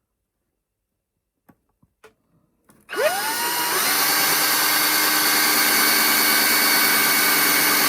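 A few faint handling clicks, then about three seconds in a small electric drill starts, its whine rising quickly in pitch, and runs at a steady high speed while drilling a hole.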